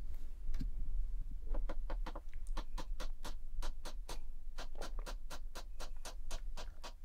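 A rapid, even run of light ticks or taps, about five a second, starting about one and a half seconds in.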